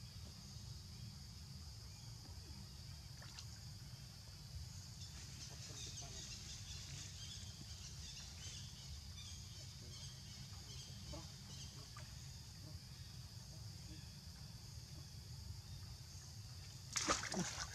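Faint outdoor forest ambience: a steady high-pitched hiss over a low rumble, with a few faint scattered ticks. Near the end comes a brief, much louder burst of noise.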